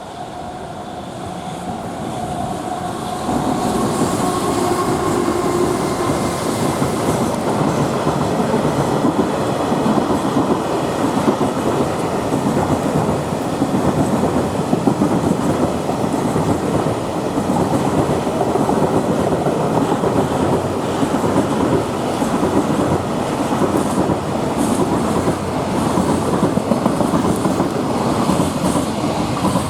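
Freight train hauled by a JR Freight EF210 electric locomotive passing close by, its wagons' wheels clattering steadily over the rail joints. It grows louder over the first few seconds, then runs on at a steady level.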